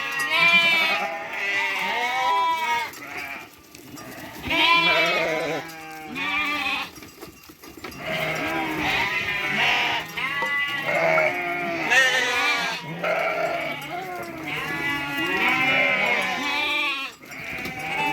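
A flock of sheep bleating, many calls overlapping, with brief lulls about four and seven seconds in.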